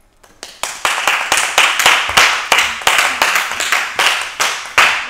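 A group of people clapping their hands together in a steady rhythm, about three to four claps a second, starting suddenly and growing louder over the first second.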